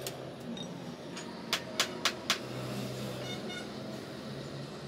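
Four quick, sharp metallic taps about a quarter second apart, a small hammer striking metal on a work block, over a steady background rumble.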